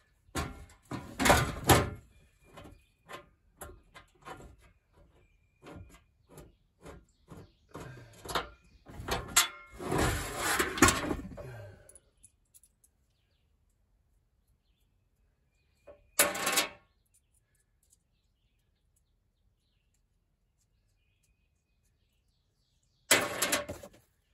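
Irregular knocks, clicks and rattles as straps and metal parts are handled, busiest about ten seconds in. Then near silence, broken by two short clattery bursts, one a little after sixteen seconds and one just before the end.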